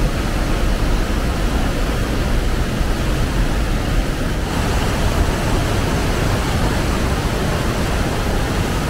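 Waterfall and whitewater rushing steadily.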